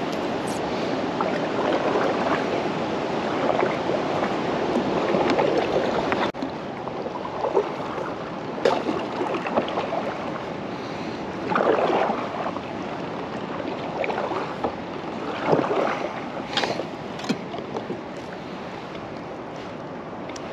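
Wind buffeting the microphone over water lapping and sloshing against a plastic kayak hull, in a few stronger gusts, with a few light knocks and clicks.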